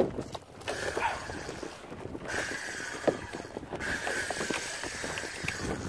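A fishing reel whirs under the load of a hooked fish in three runs of a second or more each, with short breaks between them. A sharp knock comes right at the start, over a low wash of wind and water.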